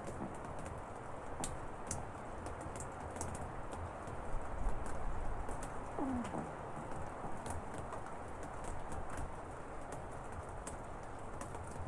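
A puppy snoring with steady rain and scattered drips beyond an open window. About six seconds in comes one sound that falls in pitch.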